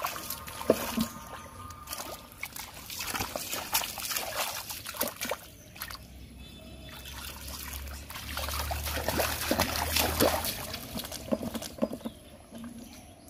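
Shallow muddy water sloshing and splashing as a person wades through it and feels about in the mud by hand: a run of short, irregular splashes, busiest about two-thirds of the way through.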